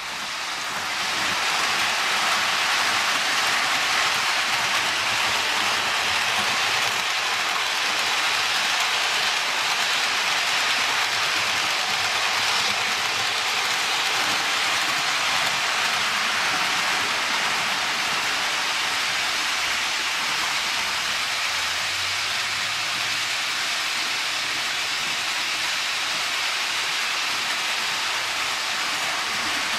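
Steady rolling hiss of Märklin HO model trains running on metal track, rising over the first second and then holding level.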